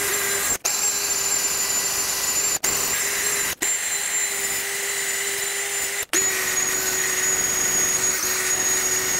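Drill spinning a wire wheel brush against a steel wheel hub, scrubbing pitting and rust off the rotor mounting face. A steady motor whine with the hiss of the wire bristles, broken by a few very short gaps.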